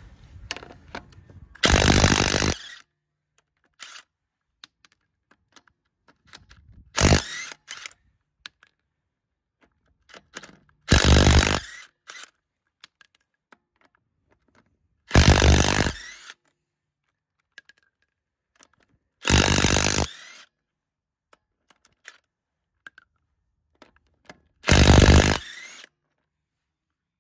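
Cordless impact wrench hammering the lug nuts off a Toyota Land Cruiser wheel, in six bursts of about a second each, a few seconds apart. Light metallic clicks of the nuts being handled fall between the bursts.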